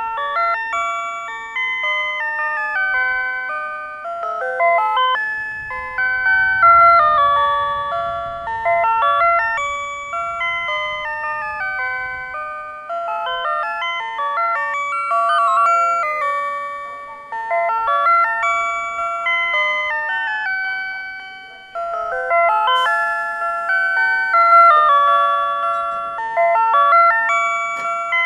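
PATLITE electronic annunciator on a Tobu Railway platform playing its signal-clear melody, a looping electronic chime tune that tells the crew of a one-man train the departure signal has cleared. It keeps sounding for as long as the signal stays clear.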